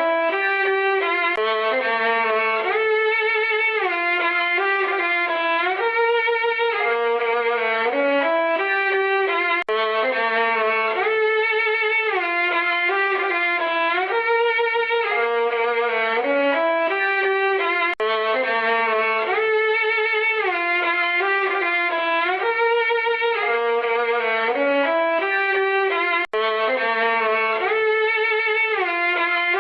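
Sad violin tune of slow, sliding, mostly descending notes. The same short phrase loops about every eight seconds, with a brief break between repeats.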